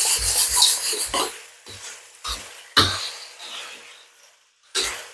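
Metal spatula scraping and knocking against a wok while stir-frying tempe, in short strokes about every half second, with a pause near the end.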